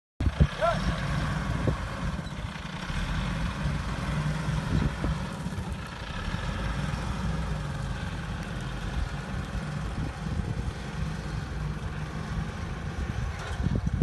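Fire truck engine running steadily at a low rumble. A brief rising chirp comes about half a second in.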